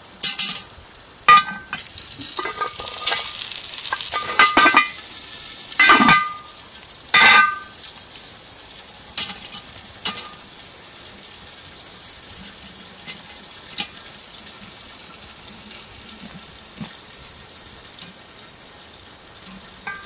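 Metal hook clanking against a cast-iron Dutch oven's bail and lid as the pot is turned on the fire: about six sharp, ringing clanks in the first eight seconds, and a few fainter ones later. Under them runs a steady sizzle of potatoes starting to fry in oil on the bare cast iron.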